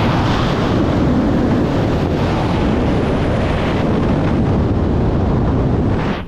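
Loud, steady rush of wind over the camera microphone from the airflow of a wingsuit in flight, dropping off suddenly just before the end.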